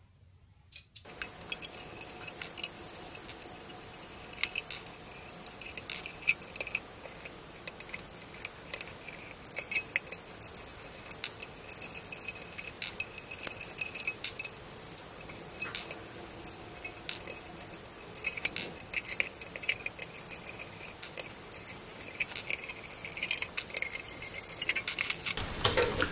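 Screws being undone from a sheet-metal equipment cover: a long run of small metallic clicks, scrapes and rattles, several a second, over a faint steady hum.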